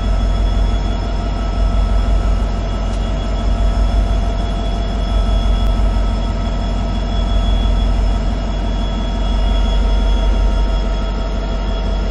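WDP4D diesel-electric locomotive, with its EMD 16-cylinder two-stroke diesel, working under power as the train starts to move off, heard inside the cab: a steady heavy low rumble with a steady whine over it.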